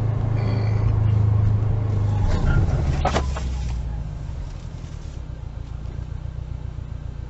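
Car engine and road noise picked up by a dashcam: a loud steady hum that drops away about two seconds in. A single sharp knock comes about three seconds in, then a quieter steady rumble.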